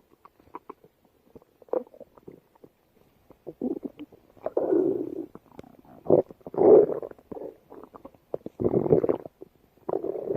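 A stomach growling and gurgling in irregular bursts a second or two apart, with small clicks and squeaks in between.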